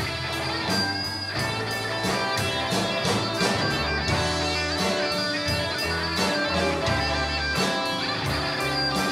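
Live band playing an instrumental passage without vocals: electric guitars over bass guitar and drums.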